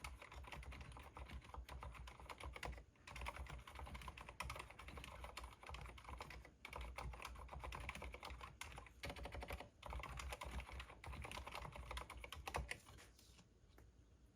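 Cherry MX Board 2.0S wireless mechanical keyboard, stock with no modding, being typed on: fast, continuous runs of key clicks broken by a few short pauses. The typing stops near the end.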